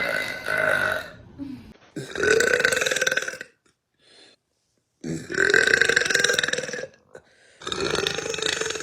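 A woman belching: a run of long, loud burps, each lasting about one and a half to two seconds, with short pauses between them and a silent gap of about a second and a half near the middle.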